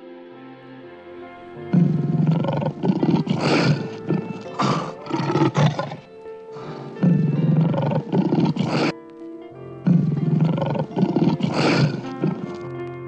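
Lion roaring in two bouts, each a run of deep roars and shorter grunts, the first starting about two seconds in and the second about ten seconds in, over steady background music.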